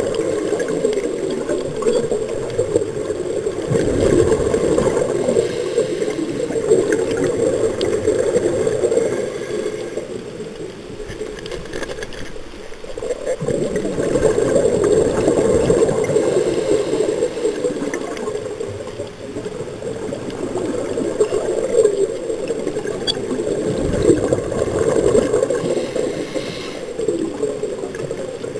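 Scuba regulator exhaust bubbles gurgling past the underwater camera, swelling and fading in long swells with the diver's breaths.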